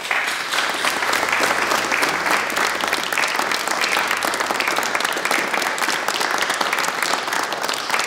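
An audience applauding: many hands clapping together in a steady, dense stream that breaks out suddenly at the start.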